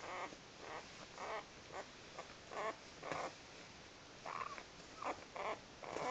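Week-old puppies whimpering and grunting: about a dozen short, quiet cries scattered through.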